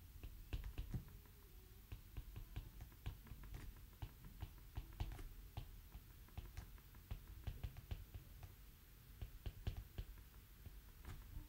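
Handwriting: a pen tapping and scratching on the writing surface in faint, irregular clicks, several a second, over low room rumble.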